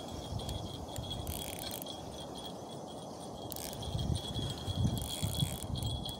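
Metal parts of a spinning reel clicking and jingling as its crank handle is fitted and screwed on by hand. Low wind buffeting the microphone grows strongest about four seconds in, with a steady high whine underneath.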